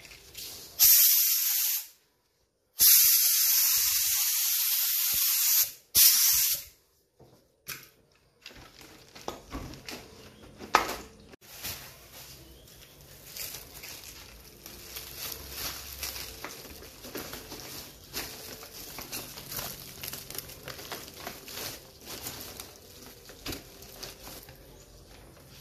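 Automotive paint spray gun hissing in three bursts, a long one in the middle, as black paint is sprayed over a panel. After that come softer rustling and handling noises.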